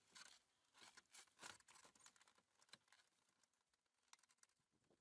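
Near silence, with faint scattered clicks and rustles of hands handling plastic dash trim, thinning out toward the end.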